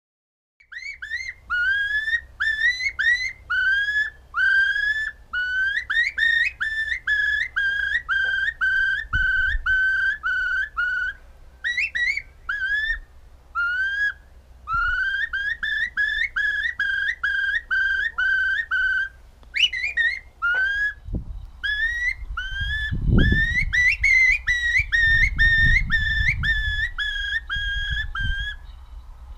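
Finger whistling that imitates a Eurasian curlew's call: short whistles, each rising and then holding, repeated about two or three a second in runs with brief pauses.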